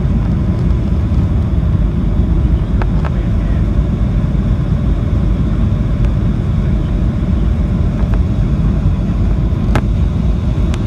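Steady low cabin noise of a Boeing 737-800 on final approach with the flaps extended: its CFM56-7 turbofans and the airflow over the wing heard from a window seat. A few faint clicks sound over it.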